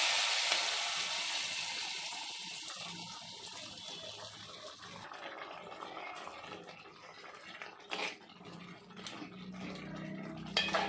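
Hot tempering oil with mustard seeds, curry leaves and dried red chillies hitting the liquid sambar, sizzling loudly and dying away over several seconds. A few sharp clicks near the end.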